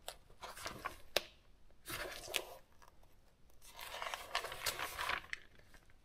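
Paper pages of a handwritten journal being turned and handled. A few sharp clicks, then two stretches of rustling, the longer one near the end.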